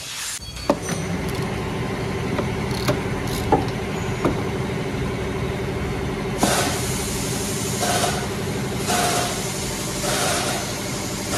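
Steady engine idle drone with a low hum throughout, with a few sharp metallic clicks over it. From about six and a half seconds in come repeated short strokes of a ratchet wrench loosening a wiper-arm nut, about one a second.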